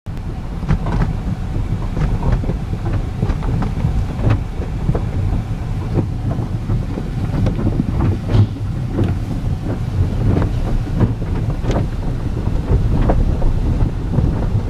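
Automatic car wash heard from inside the car's cabin: water spraying and drumming on the body and windows as a loud low rumble, with many irregular splats and knocks.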